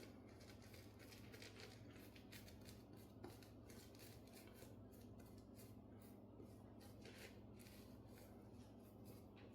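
Faint wet-shaving strokes on the face, short and crisp, several a second.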